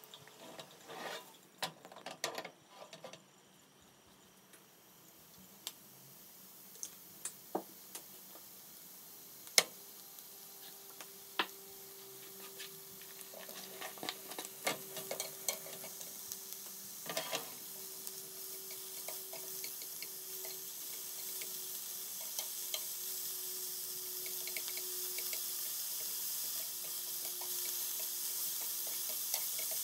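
Broccoli and mushrooms frying in a pan, the sizzle growing steadily louder, with chopsticks clicking against the pan now and then, most in the first few seconds.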